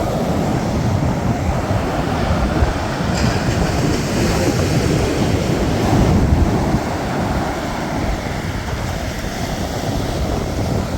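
Surf breaking on a sandy beach, a steady rushing roar, with a heavy low rumble of wind on the microphone.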